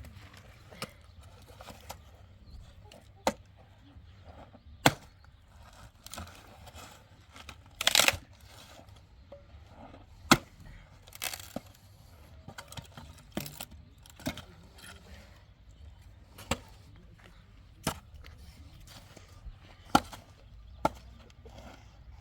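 Sharp, separate blows on wood at an uneven pace, roughly one every one to three seconds, with a quick flurry of strikes about eight seconds in.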